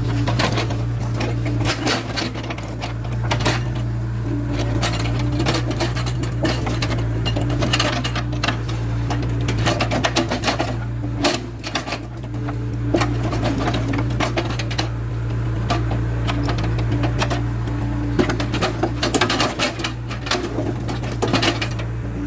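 CAT 307C excavator's diesel engine running steadily, with many sharp knocks and clatters of stone against the steel bucket as it moves rocks.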